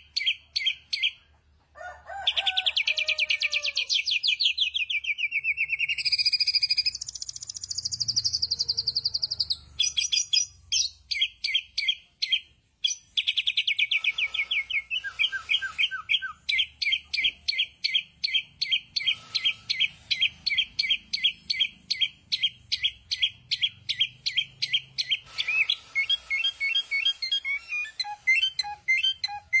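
A caged samyong songbird singing loudly in long runs of fast repeated chirps and trills, its phrases changing every few seconds with brief pauses between them. Near the end a run of short, evenly spaced lower beeps starts under the song.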